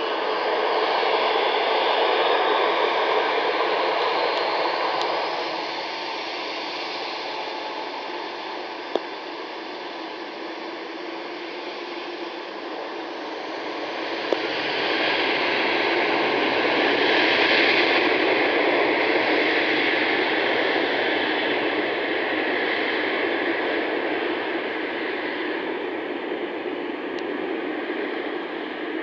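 Boeing 737 jet engines running at high power on the runway, a steady rushing jet noise with a faint rising whine at first. It swells again about halfway through as the aircraft passes and heads away with its exhaust toward the listener.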